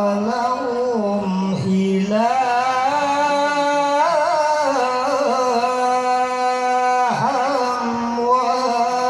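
A male qori recites the Qur'an in Arabic in a melodic tilawah style into a handheld microphone. He holds long notes with wavering ornaments, steps up in pitch about two seconds in, and breaks off briefly about seven seconds in.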